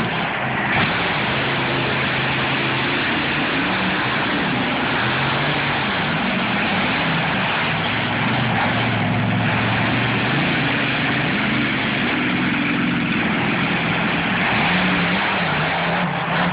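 Monster truck engine running loudly and revving, its pitch rising and falling again and again throughout.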